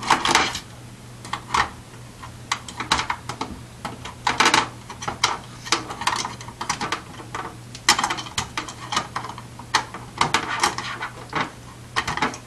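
Irregular clicks, knocks and rattles of plastic and metal parts being handled on an airsoft M1A1 Thompson replica while its battery is fitted, over a steady low hum.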